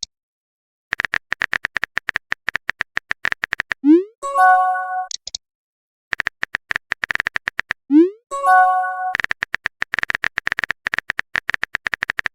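Texting sound effects: runs of rapid keyboard-tap clicks, twice followed by a quick rising pop and a short chime as a message is sent, then a third run of typing clicks.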